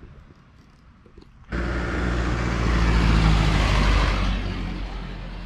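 A heavy vehicle passing close by, engine and tyre noise together. It cuts in suddenly about a second and a half in, swells, and fades away toward the end.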